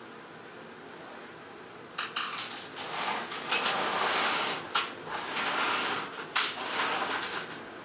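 Irregular clattering and clinking of small hard objects, starting about two seconds in, with several sharp clicks among it.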